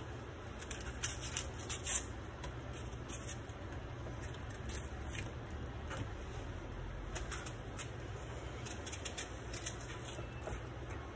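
Dry skin of a white onion crackling and rustling as it is peeled off by hand, with a cluster of sharp crackles about a second or two in and lighter scattered ones after, over a low steady hum.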